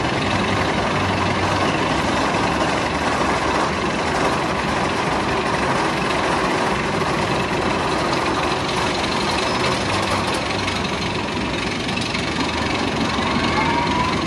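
Rocky Mountain Construction hybrid roller coaster train running along its steel track, a steady noise that does not let up.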